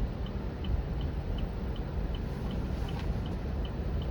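Cabin noise of a Cruise self-driving car rolling along: a low, steady tyre-and-road rumble, with a steady high ticking about three times a second.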